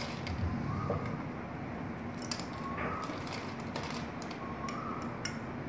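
Ice cubes being spooned from a plastic bowl into a drinking glass, clinking sharply against the glass and spoon several times at irregular intervals.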